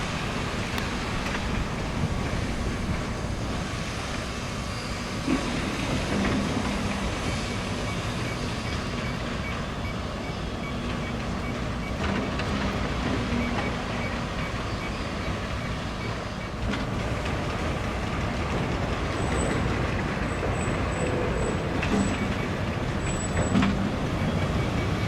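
Steady road traffic noise: an even rumble of vehicles and tyres on the street.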